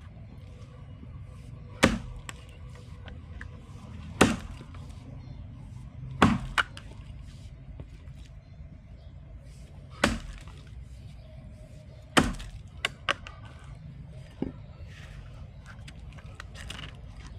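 Felling axe chopping into a knotty log: five heavy strikes about two seconds apart, with a longer pause in the middle and a few lighter knocks after the last. The knotty, tight-grained wood is hard to chop and does not split.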